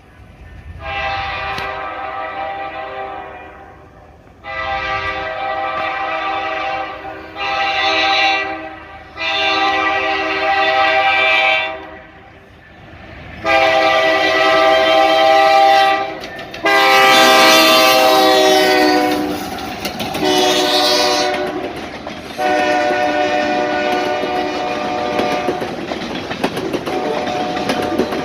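Diesel freight locomotive's multi-chime air horn sounding a series of about eight blasts, long and short, each a loud steady chord. In one blast past the middle the chord slides down in pitch.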